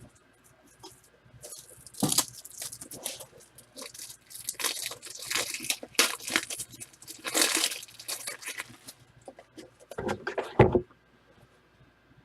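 Plastic and foil wrapping of a football trading-card box and packs being torn open and crinkled in a run of rustling rips, with a dull thump about ten seconds in.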